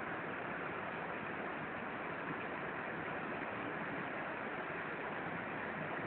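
Rushing white water released from a dam, churning through the river channel below as a steady, unbroken rush.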